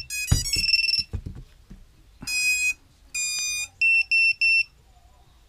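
An FPV quadcopter's electronics play their power-up beep tones as its LiPo battery is plugged in. A connector knock comes first, then a quick rising run of tones, two longer tones, and three short identical beeps.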